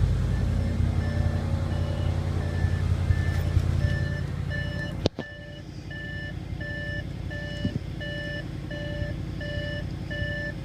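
2015 Audi RS7's twin-turbo V8 idling steadily after a cold start, with an electronic beep repeating about one and a half times a second. About five seconds in there is a sharp knock, after which the engine sound is quieter.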